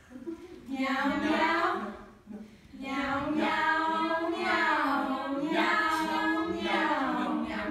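A small choir of young female voices singing a comic cat-choir number a cappella, in long phrases that swoop up and down in pitch, with a short break about two seconds in.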